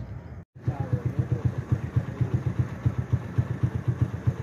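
A small engine running at a steady idle, a regular low thudding of about five beats a second, starting after a brief break in the sound about half a second in.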